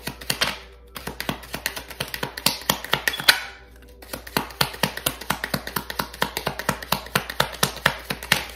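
A deck of oracle cards being shuffled by hand: a fast, dense run of card clicks and flicks, breaking off briefly a little before halfway and then resuming.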